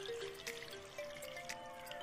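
Soft background music, a simple melody of held notes, over faint splashing and dripping as hot water is poured from a steel bowl into an aluminium pressure cooker of mutton.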